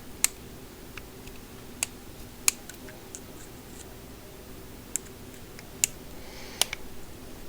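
Milwaukee Shockwave impact pivoting bit holder and its driver bit being worked by hand, giving about six sharp, small clicks a second or so apart as the bit is pulled at and the holder is handled, with a brief soft rustle near the end.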